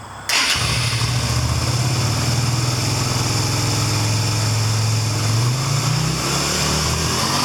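Yamaha Virago 250 (XV250) air-cooled V-twin motorcycle engine running. It comes in suddenly about a quarter second in and idles steadily, its pitch rising and falling a little near the end.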